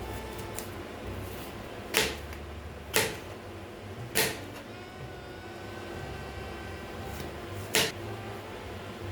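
Four sharp knocks, three about a second apart and a fourth a few seconds later, over a low steady hum.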